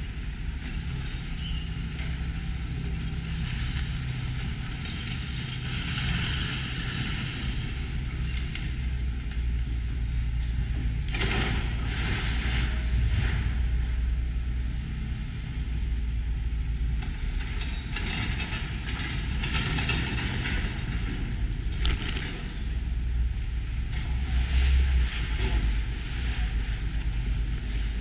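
Demolition excavator's diesel engine running steadily, with louder bursts of clatter from the rubble now and then, loudest about eleven seconds in and again near the end.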